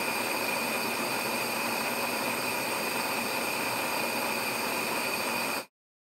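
Steady hiss of a gas pilot flame burning, cutting off abruptly near the end as the pilot light goes out.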